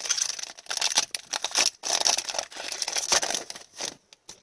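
Wrapper of a 2020-21 Upper Deck Series 1 hockey card pack being torn open and crinkled by hand. The crackling stops about four seconds in.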